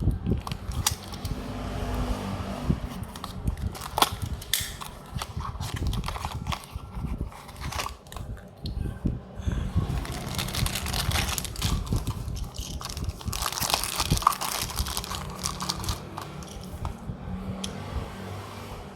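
Hands handling a small toy car and its cardboard box and plastic packaging: scattered clicks and taps, with a longer spell of crinkling and rustling in the middle.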